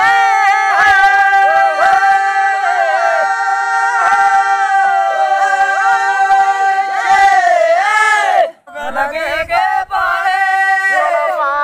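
Dogri bhakh folk singing by a group of singers: a long steady note is held beneath voices that bend up and down. The singing breaks off briefly about eight and a half seconds in, then starts again.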